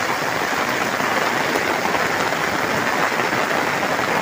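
Steady rain falling on open ground, an even hiss with no let-up.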